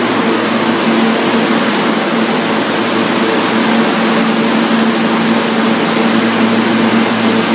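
Loud steady rumble and hiss of an R160 New York City subway train at the platform, with a low steady hum underneath.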